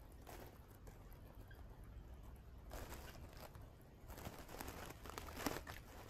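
Faint crackling rustle of dry grass nest material, coming in a few patches, with a small click about five and a half seconds in.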